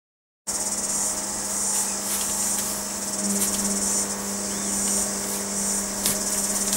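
Steady high-pitched insect chorus over a low steady hum, starting about half a second in, with a few faint clicks.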